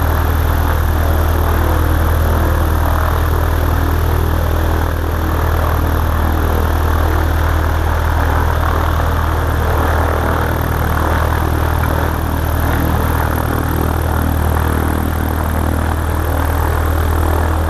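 Aviat Husky bush plane's piston engine and propeller running steadily at low taxi power, a constant low-pitched engine note under a broad rushing noise.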